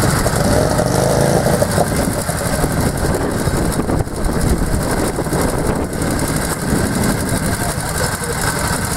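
Veteran motorcycle engine running steadily at idle.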